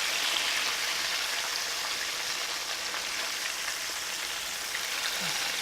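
Breaded turkey cutlets pan-frying in hot oil, a steady sizzle with fine crackling.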